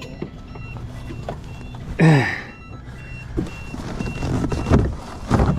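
Electronic alarm beeping, a high steady beep repeated about twice a second, over a steady low rumble. About two seconds in, a brief loud sound with falling pitch.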